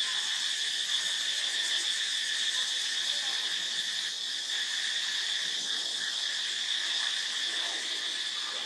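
Steady chorus of insects: a continuous high buzz at two pitches.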